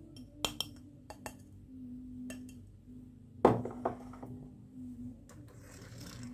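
Marbles rolling and clacking down a wooden marble run: a handful of sharp clicks, then one loud knock about three and a half seconds in, over a low steady hum.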